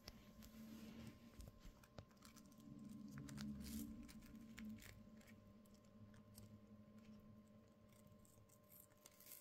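Faint scattered clicks and crunches of two peach-faced lovebirds nibbling kernels off a fresh ear of sweetcorn with their beaks, over a low hum that is strongest in the first half.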